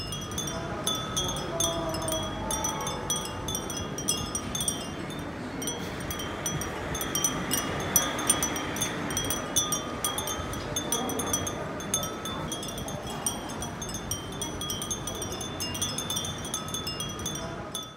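Many clear glass Japanese wind chimes (fūrin) tinkling, a constant overlapping stream of short, high rings.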